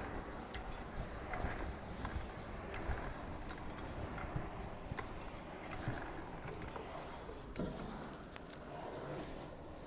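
Faint scattered clicks, scrapes and brief rustles of handling, over a low steady background noise.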